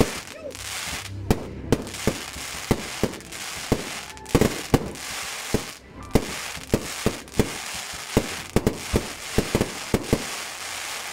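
Aerial fireworks display: a rapid, irregular run of sharp bangs, about two a second, over a steady hiss.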